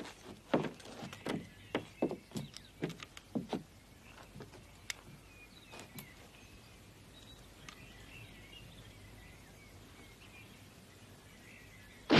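A run of about ten knocks, two or three a second, during the first few seconds, then a hushed outdoor quiet with faint bird chirps.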